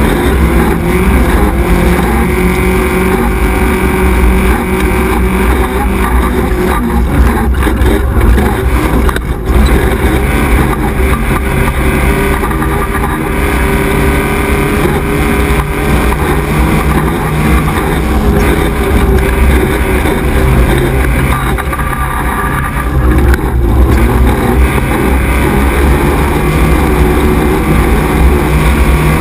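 XY 1100R 4x4 buggy's engine running hard at race pace, heard from on board, its pitch rising and falling as the throttle opens and closes. A few sharp knocks come through, about seven and nine seconds in.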